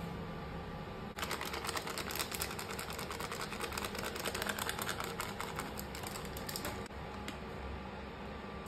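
Fast, evenly spaced tapping, many strokes a second, starting about a second in and stopping sharply about five and a half seconds later, over a steady background hum.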